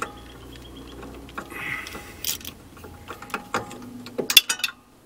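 Ratchet wrench clicking in uneven runs as a bolt on the thermostat housing of a Chevrolet 350 V8 is backed out, with a cluster of sharp metal clicks about four seconds in.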